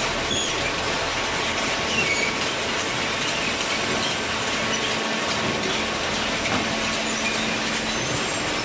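Steady mechanical running noise of a hydraulic cardboard baler at work, with faint high squeaks now and then.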